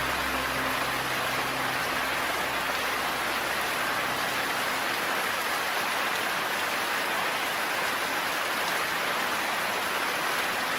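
Steady, even rain hiss, like heavy rain falling on a surface. Low, steady background music tones fade out in the first few seconds.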